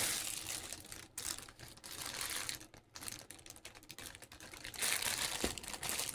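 Plastic food packaging crinkling and rustling as it is handled and turned over, in irregular bursts with short lulls, and a single sharp knock about five and a half seconds in.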